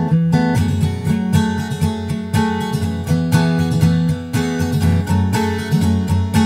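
Background music: an acoustic guitar arrangement, plucked and strummed chords in a steady rhythm.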